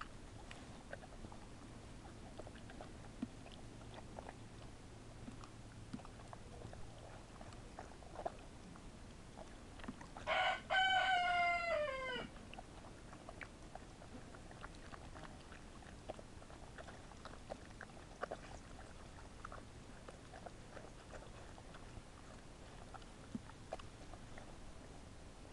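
A rooster crows once about ten seconds in: a short note, then a long held one that falls away at the end. Faint scattered clicks of dogs chewing and licking food run underneath.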